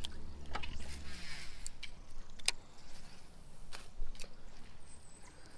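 A few sharp, separate clicks and taps from a baitcasting rod and reel being handled during a swimbait retrieve, after a low rumble in the first second.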